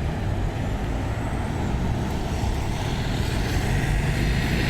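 Road traffic: vehicle engines running with tyre noise, building a little louder from about halfway through as vehicles approach.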